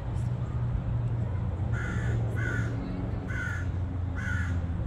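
A crow cawing four times, about a second apart, over a steady low rumble.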